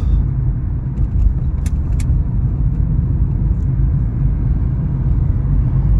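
Car being driven, heard from inside the cabin: a steady low rumble of engine and road noise. A couple of light clicks come about two seconds in.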